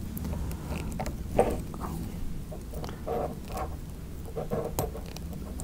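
Irregular small scratches and clicks of fine wire braid being trimmed off the end of a coaxial cable.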